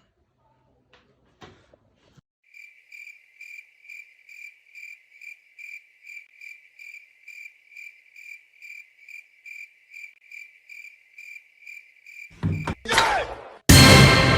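Cricket chirping in an even pulse about three times a second, starting and stopping abruptly. Near the end comes a rising whoosh, then a loud hit that rings on.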